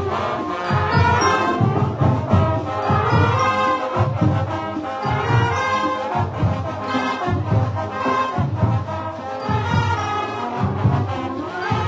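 Festival band playing: brass over a steady, even bass-drum beat.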